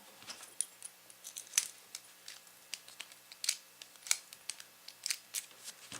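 Small pin cam lock's metal parts clicking as they are fitted together and worked: a string of faint, sharp, irregular clicks and ticks.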